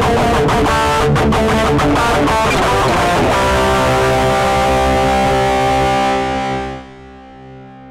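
Stratocaster-style electric guitar with a replacement neck, played through an amplifier. A quick run of picked notes is followed, a little over three seconds in, by a chord struck and left to ring, dying away near the end.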